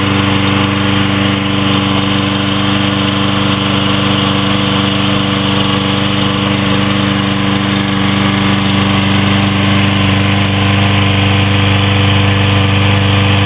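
Troy-Bilt push mower's 190 cc Briggs & Stratton single-cylinder engine running steadily, with no change in speed.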